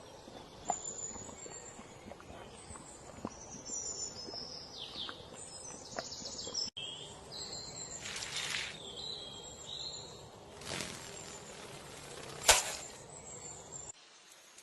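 Outdoor ambience with birds chirping and calling over a steady background hiss, with a few light clicks and one sharp knock near the end.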